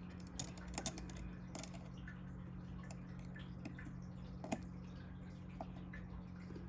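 Scattered small clicks and taps of metal knife parts being handled and fitted during reassembly of a button-lock folding knife, a few close together near the start and one sharper click past the middle, over a faint steady hum.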